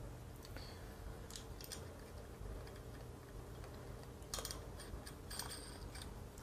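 Faint, scattered clicks and light metallic clinks of small mounting hardware, nuts and spacers, being handled and threaded by hand, over a low steady hum.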